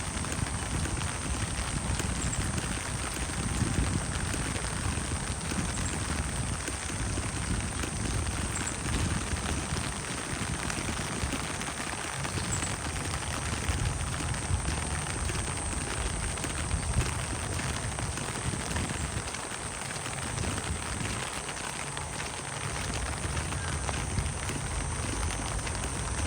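Steady rain falling and pattering on surfaces, with a person's footsteps walking through it.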